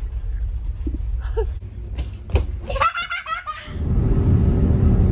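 A young child laughs briefly about three seconds in, over a low rumble in a ferry cabin. Near the end a louder, steady low rumble of road noise inside a car takes over.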